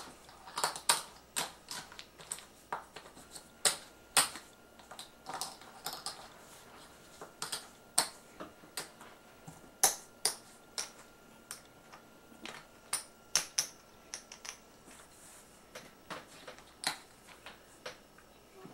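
Poker chips clicking against each other as they are counted and stacked by hand: irregular sharp clicks, sometimes several in quick succession, with short pauses between.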